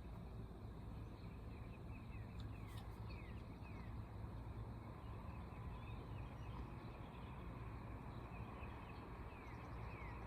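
A steady low rumble underneath, with a bird's short, quick down-slurred whistled notes twice: a run of about four notes a few seconds in, and another near the end.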